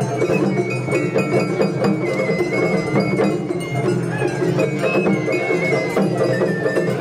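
Japanese festival hayashi music: a bamboo flute plays held notes that step up and down between pitches, over taiko drums and a small metal hand gong struck in a steady rhythm.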